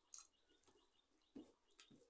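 Quiet, soft wet squishes and light clicks of a hand mixing rice on a steel plate, a few separate strokes, over a faint, rapid, steady chirping in the background.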